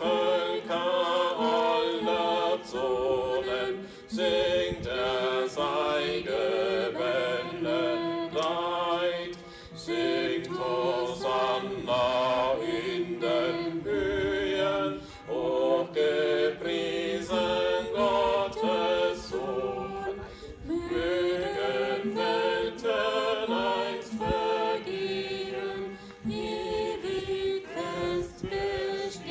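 Group of voices singing a hymn, phrase after phrase of held, wavering notes with short breaks between lines.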